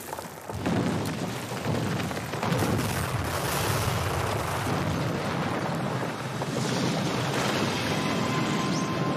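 Brick wall smashed apart and collapsing: a sudden loud crash about half a second in, then a continuous rumble of bricks and rubble tumbling down.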